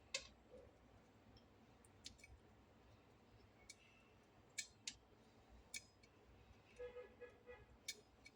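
Several scattered sharp clicks and taps of a kitchen knife on a cutting board as seeds are picked out of sliced lemons. A few faint short pitched tones are heard near the end.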